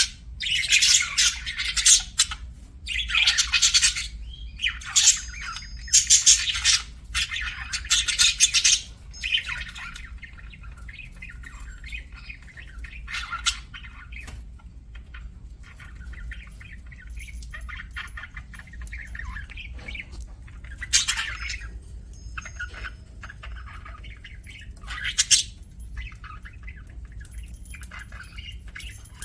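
Budgerigars chirping and chattering. Loud, dense squawking bursts fill about the first nine seconds. After that comes softer, continuous warbling chatter, broken by a few loud calls.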